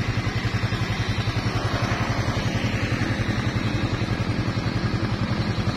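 Motor vehicle engine running at a steady road speed, a fast even pulsing, with road and wind noise over it.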